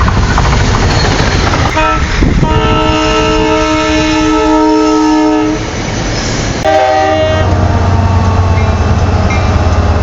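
Amtrak cab car's multi-tone air horn: a short blast about two seconds in, then a long steady blast of about three seconds, then a shorter blast near seven seconds. The passing train's loud rushing noise runs beneath it, with a deep low rumble in the last few seconds.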